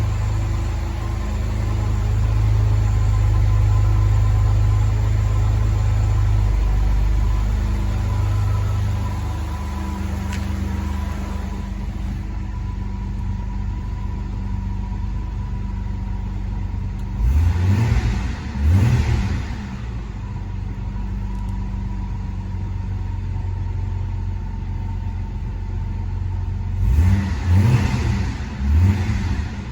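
1985 Toyota Celica Supra's straight-six engine idling after a cold start, running a little louder for the first several seconds before settling lower. The throttle is blipped twice about halfway through and three more times near the end, each a short rev that drops straight back to idle.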